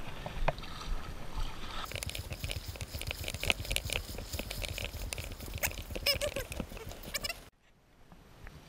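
Footsteps splashing and sloshing through ankle-deep water as someone wades to shore, with a few short, high pitched calls around six seconds in. The splashing stops abruptly near the end, leaving a much quieter background.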